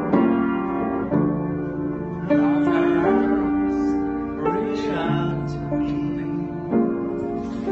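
Upright piano played in sustained chords that change every second or so, with a man's voice singing along in a couple of short phrases.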